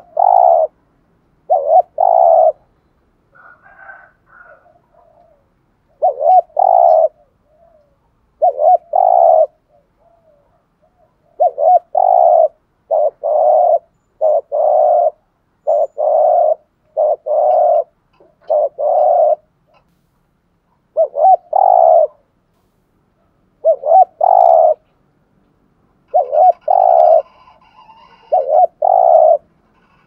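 Spotted dove cooing: a long series of short, deep coos, first in pairs with pauses, then from about eleven seconds in a steady run of roughly one to two coos a second. It is the rapid bowing coo that keepers call 'thúc gù'.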